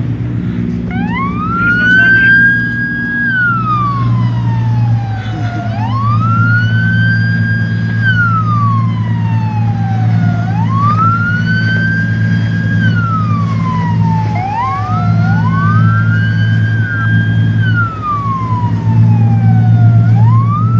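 Coast guard patrol boat's siren wailing in a slow repeating cycle: each wail rises quickly, holds, then falls away, about every four and a half seconds, with two wails overlapping about two-thirds of the way through. A boat engine drones steadily underneath.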